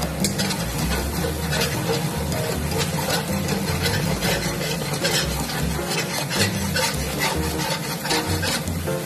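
Spatula scraping and tossing chicken, mushrooms and leek around a wok in repeated quick strokes, over the sizzle of the hot oil.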